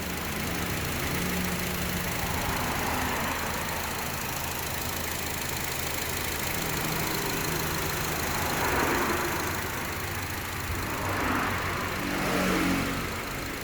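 2017 Honda HR-V's four-cylinder engine idling steadily with a newly replaced accessory-belt tensioner, the belt drive running quietly without squeal or rattle. The sound swells briefly twice, about two-thirds of the way through and near the end.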